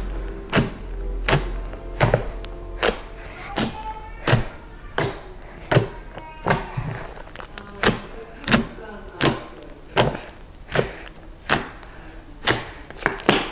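Fingertips pressing and poking into a large mound of pink fluffy shaving-cream and Model Magic slime, each poke giving a short sharp pop, repeating steadily about one and a half times a second.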